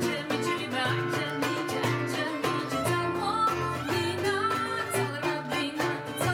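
Live Bulgarian folk song played by a small acoustic band: an acoustic guitar strumming a steady rhythm under violin and flute, with a woman singing.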